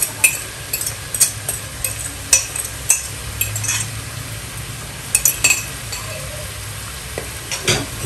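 Vegetables sizzling as they fry in a pot, with a fork clicking and scraping against a plate many times as bean sprouts are pushed off it into the pot.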